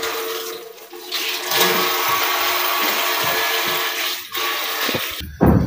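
Kitchen tap running in a steady stream into a stainless-steel sink, the water splashing over a hand held under it. It cuts off about five seconds in.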